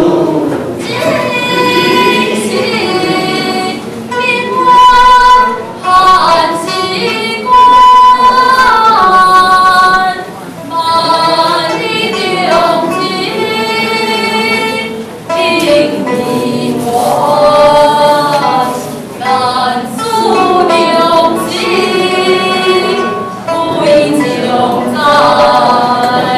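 A girl singing solo into a microphone: one high voice carrying a slow melody of long held notes, phrase by phrase.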